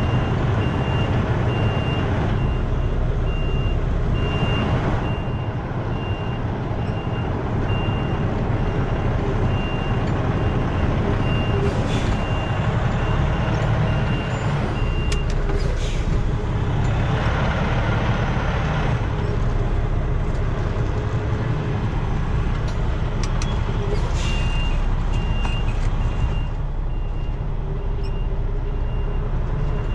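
Semi-truck's diesel engine running low and steady while a reverse alarm beeps at an even pace; the beeping stops about halfway through and starts again near the end. A few short hisses cut in over it.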